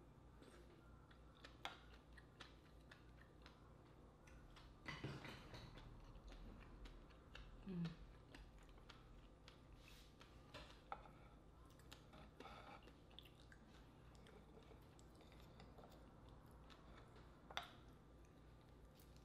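Faint mouth sounds of eating an oyster: slurping it from the shell and chewing, with scattered small clicks. There is a louder stretch about five seconds in and a brief hum near eight seconds.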